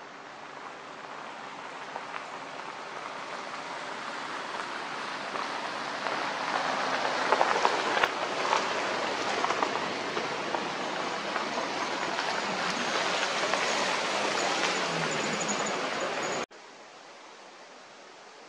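Wind rushing through aspen trees, the leaves rustling and fluttering, building gradually over several seconds. It cuts off suddenly near the end.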